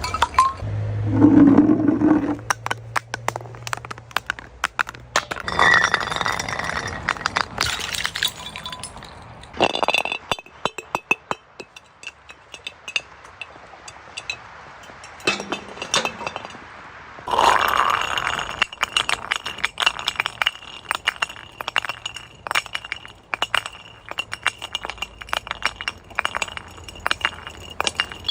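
Glass bottles being crushed: a long run of sharp cracking, clinking and crunching of breaking glass, with louder bursts about 1, 6, 10 and 17 seconds in.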